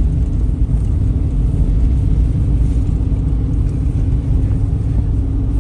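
Steady low road and engine rumble heard inside a moving car's cabin, with a constant hum underneath.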